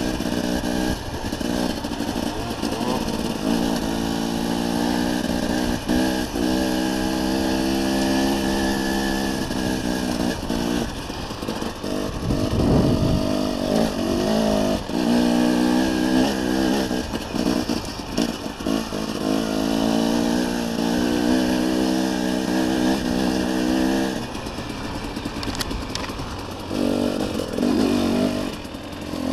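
Dirt bike engine under way on a trail, its pitch rising and falling again and again as the throttle opens and closes, with a brief dip about twelve seconds in.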